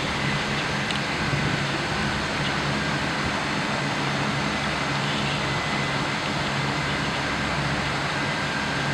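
Steady hum and rushing noise of running machinery, with a low drone and a faint thin high whine held throughout.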